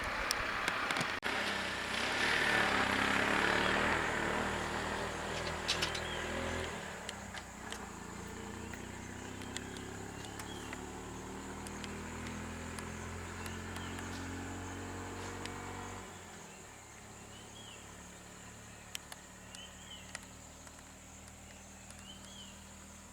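A vehicle engine running, its pitch shifting over the first several seconds, then holding at a steady idle; about sixteen seconds in it drops lower and quieter. Faint short high chirps sound now and then in the second half.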